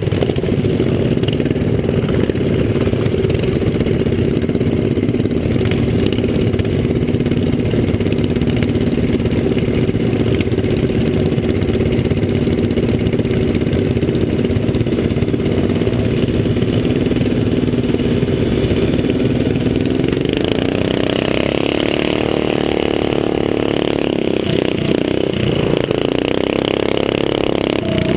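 Several small minibike and pitbike engines idle and blip steadily at the start line. About twenty seconds in they rev up and pull away as the race starts, and the engine pitch rises and keeps changing through the rest.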